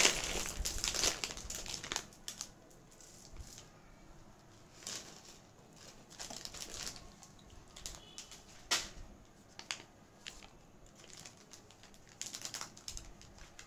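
Plastic packing bag and paper wrapping crinkling as a necklace is unwrapped, densest in the first two seconds. Then scattered soft rustles and light clicks as the gold bead necklace is handled and set on a display bust.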